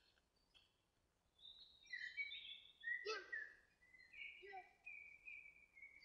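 Faint birdsong: clear whistled notes and short chirps, starting about a second and a half in.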